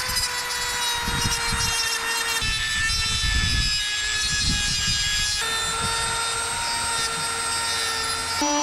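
Dremel rotary tool running at high speed, grinding through the gelcoat of a fibreglass hull down to the glass to prepare it for an epoxy bond. A steady high whine over rough grinding, its pitch sagging slightly under load and jumping abruptly a few times.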